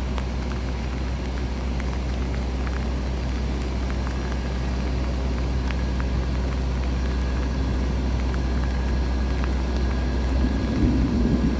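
Steady low diesel drone of a stationary passenger train idling at the platform, most likely the generator car at its tail running. A brief louder rumble comes near the end.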